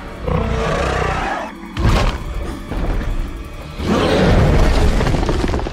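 Film soundtrack of a dinosaur fight: loud dramatic music over deep rumbling and heavy thuds, with a sudden hit about two seconds in and a second loud swell near the end.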